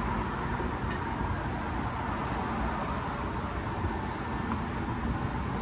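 Steady street traffic noise, an even wash of sound with a faint steady tone running through it.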